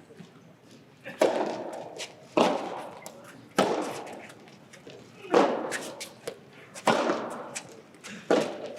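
A soft tennis rally: rackets strike the soft rubber ball about six times, a sharp pop every second or so, ringing briefly in a large hall.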